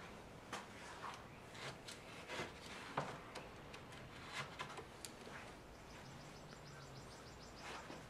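Faint scratching of a pencil drawing cut marks on a western red cedar board, about a dozen short strokes in the first five seconds and one more near the end.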